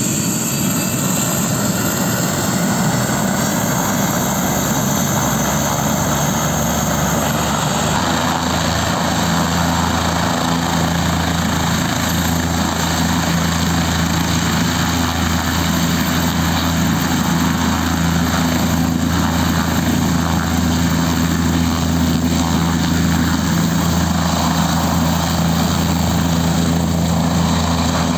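Light helicopter running on the ground with its main rotor turning, then lifting off near the end. A loud, steady drone, with a steady low hum settling in about eight seconds in.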